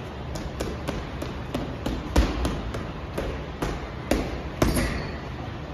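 Boxing gloves punching a round wrecking-ball heavy bag in an irregular run of blows. The heaviest thuds land about two seconds in and twice near the end.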